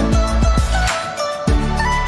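Background music: a melody of held notes over a steady beat of deep bass thumps.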